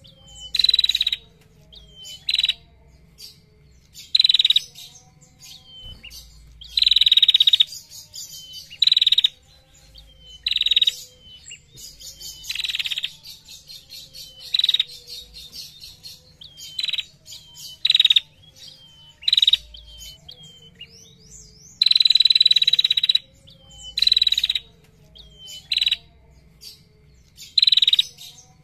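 Female tailorbird (kept as a 'prenjak') calling loudly in long, rapid ticking trills ('ngetir'), each lasting about half a second to a second and a half and repeated every second or two, with short sharp chips in between.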